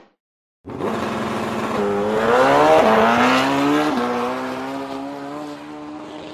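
Motorcycle engine starts after a brief silence and revs up with a rising pitch, then runs at a near-steady pitch while gradually fading away.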